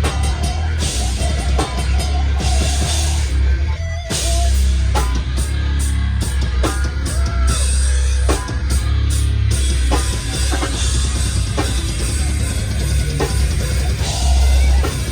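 A heavy rock band playing live at full volume: pounding drum kit with crashing cymbals over a deep, heavy bass. The music breaks off briefly about four seconds in, then comes back in a stop-start, hit-by-hit rhythm.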